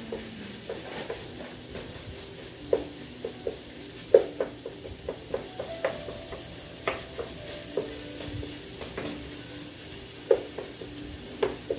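Wooden spatula stirring and chopping ground beef in a frying pan, knocking and scraping against the pan at irregular moments, the loudest about four seconds in. The browning meat sizzles underneath.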